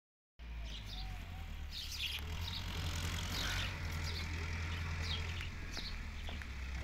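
Birds chirping repeatedly over the low, steady hum of a distant tractor's diesel engine.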